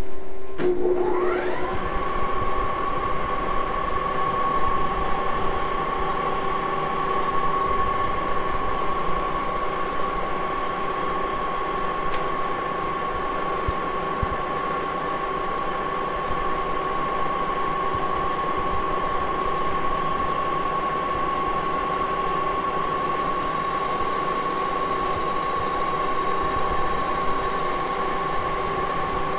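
Moore No. 2 jig borer's spindle drive switched on about half a second in, whining up to speed within a second or so, then running steadily with a high whine as the boring head turns the boring bar in the aluminum part.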